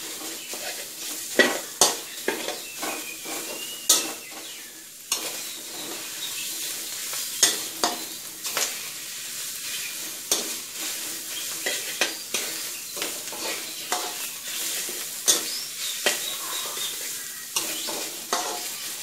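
Metal spatula scraping and clinking against a steel wok in irregular strokes as pork belly and red curry paste are stir-fried in oil, with a steady sizzle underneath; the heat is low.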